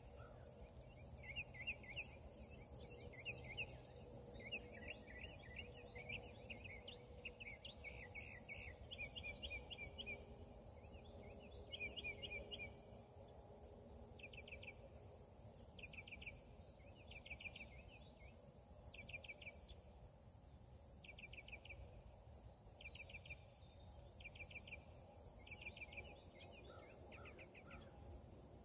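Faint birdsong: small birds chirping in short, rapid trills repeated every second or two, over a low background rumble of outdoor noise.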